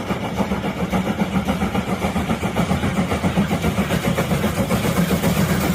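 Engine running steadily with a fast, even pulse.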